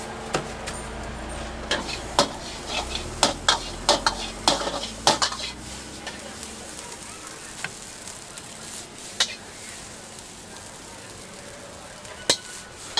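Fried rice being stir-fried in a wok: a metal spatula clanks and scrapes against the wok while the food sizzles. The clanks come in a quick run over the first five seconds, then a few single ones; a low rumble underneath stops about six seconds in.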